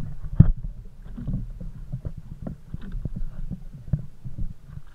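Small wooden fishing boat rocking at sea: a steady low rumble of water against the hull, with irregular knocks and thumps.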